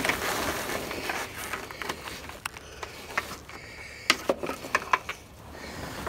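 Mainsail cloth rustling and crinkling as it is handled at the mast, then a run of sharp clicks and light knocks as the sail slides are worked out through the gate of the aluminium mast track.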